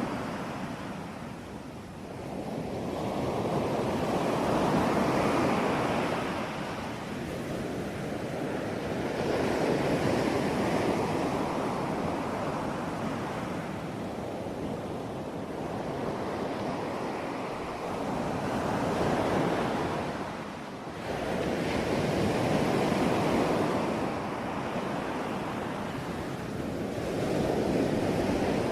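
Ocean waves breaking on the shore one after another, the wash of surf swelling and fading about every four to five seconds.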